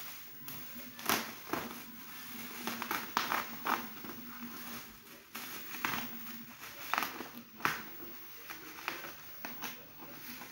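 Bubble wrap being pulled and crinkled by hand, in irregular crackling bursts.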